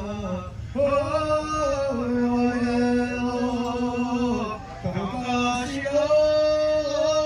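A man singing a powwow honor song: long held notes in unaccompanied phrases, with a short break about four and a half seconds in.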